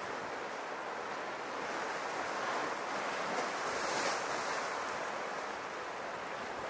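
Sea waves washing against the rocks of a small cove: a steady wash that swells to a peak about halfway through, then eases back.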